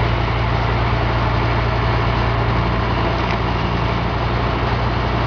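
Portable sawmill's engine running steadily at an even speed, with a strong low hum.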